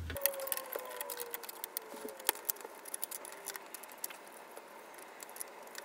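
Light clicks and taps of plastic and metal blaster parts being handled and seated into a plastic shell half: the barrel and plunger tube of a foam-dart blaster kit being pressed into place.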